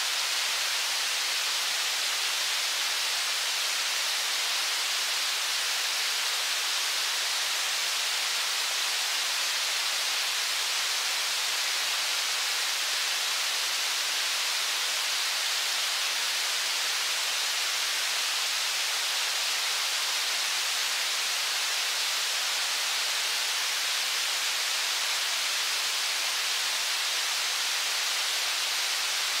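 River water rushing steadily over shallow rapids, a constant even hiss with no change in level.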